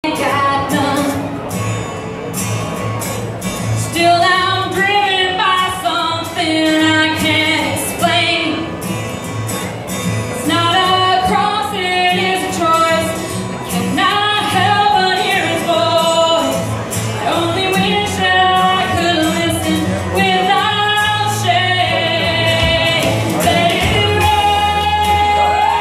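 A woman singing into a microphone over an instrumental backing with a steady beat; the voice comes in about four seconds in.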